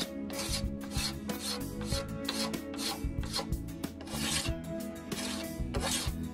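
Balsa wood wingtip being hand-sanded with a small sanding tool. Quick back-and-forth rasping strokes, about two a second and a little uneven, smoothing the trimmed end of the wing.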